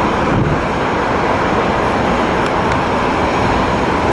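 Jet engines of an Airbus A330-200 airliner making a loud, steady rumble as it comes in to land.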